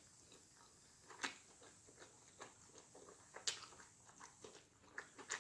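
A person chewing a mouthful of burger: faint, scattered wet mouth clicks, a few stronger ones about a second in, midway and near the end.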